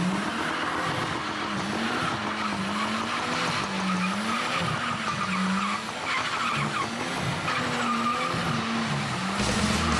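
Nissan Laurel C34's turbocharged RB25DET straight-six revving high during a burnout, the revs dipping and climbing again over and over, with the rear tyres spinning and squealing on the tarmac.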